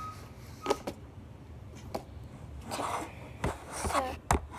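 Handling noises of slime and its plastic container: scattered sharp clicks and taps, with a short scraping, squishing rustle a little before the end.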